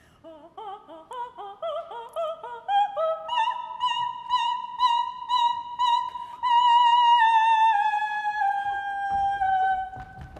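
Coloratura soprano singing an operatic passage: a run of short notes climbing step by step, then a long high note with vibrato that sinks slowly in pitch before dying away near the end.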